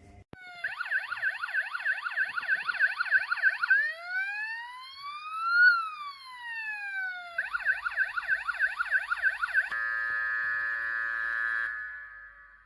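Electronic police siren sound effect of a Siku 5401 toy police boat. A fast warbling yelp of about three cycles a second plays for about three seconds, then one slow rising and falling wail, then the yelp again for about two seconds. It ends in a steady horn-like tone that stops near the end.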